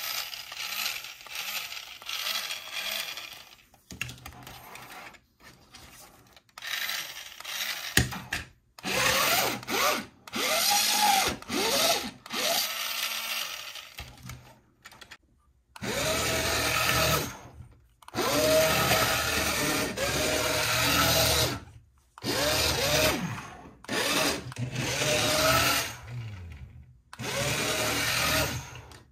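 A Spider-Man RC motorcycle toy's small electric motor whirring in repeated bursts of a few seconds each. Each burst rises in pitch as the motor spins up, then cuts off.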